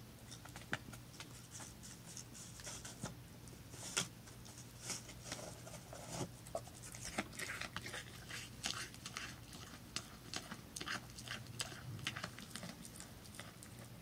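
A mule deer eating at close range: irregular crisp crunching and clicking of chewing and nibbling, several a second, with a few louder snaps.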